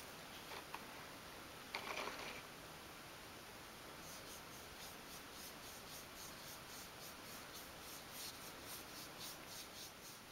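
Soft strokes of a fine paintbrush applying wood dye to thin wooden pieces, a faint brushing that repeats about three times a second in the second half. A brief louder rustle comes about two seconds in.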